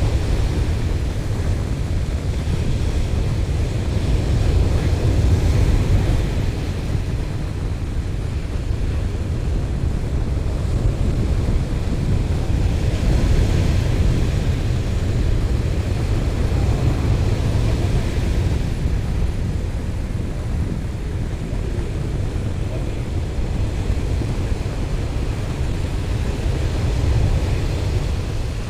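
Wind buffeting the microphone with a steady low rumble, over surf breaking and washing up a sandy beach, the hiss of the wash swelling every few seconds.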